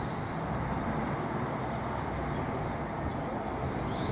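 Steady outdoor night ambience: a constant hum of distant traffic, with no thunder and no rain.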